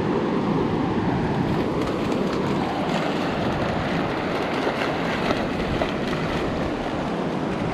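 Steady rush of surf and wind, with wind buffeting the microphone.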